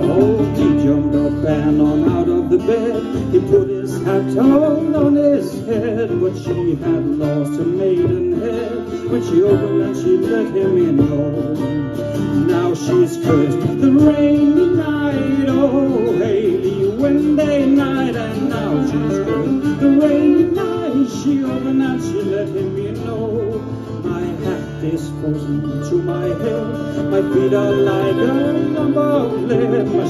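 Instrumental break of an Irish/Scottish folk tune played live: fiddle carrying an ornamented melody over strummed acoustic guitar, with a bodhran beating time.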